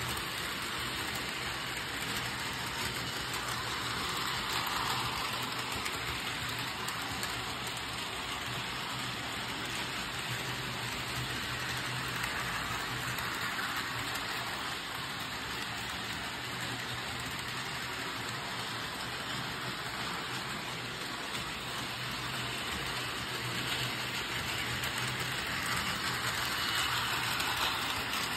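Two Bachmann HO-scale starter-set trains running at once on plastic-roadbed track: a steady whir of small electric locomotive motors and rumble of wheels on the rails, swelling a few times as a train passes close.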